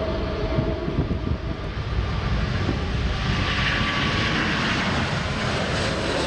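Airbus A380's four jet engines at takeoff thrust as the airliner lifts off and climbs away; a loud, steady jet noise whose hissing upper edge builds from about halfway through.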